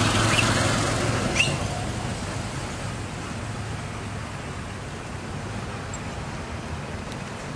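Steady outdoor traffic-like noise, with a low engine hum that fades away over the first couple of seconds. Two brief, high rising chirps come in the first second and a half.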